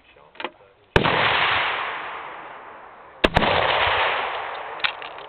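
Two rifle shots about two and a quarter seconds apart, each followed by a long echo dying away; the second is the Martini-Henry Mk IV firing, with a thick cloud of black-powder smoke. A sharp click comes about half a second before the end.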